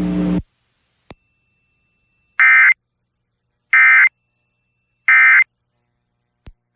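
Emergency Alert System end-of-message signal: three short bursts of digital data tones, about a second and a half apart, the SAME code that marks the end of the alert. Just before the first burst, a steady background hum under the spoken message cuts off.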